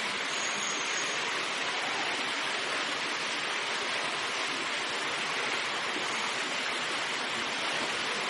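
Steady rush of running water, an even hiss-like noise that holds at one level throughout.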